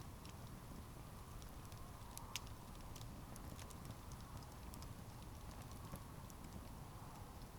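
Wood campfire crackling: irregular sharp pops and ticks over a low steady rumble of flames, with one louder pop about two seconds in.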